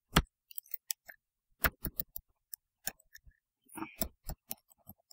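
Computer keyboard keys pressed in an irregular run of sharp clicks, some in quick pairs, the loudest at the start: key combinations being tried to break out of a hung DOS program.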